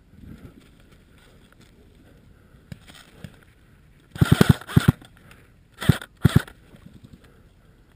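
AK-type airsoft rifle (Krinkov) firing a quick burst of about six shots about four seconds in, then two single shots close together near six seconds.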